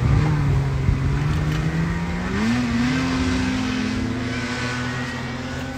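An engine starting to pull, its pitch rising over about two and a half seconds and then holding steady at the higher speed.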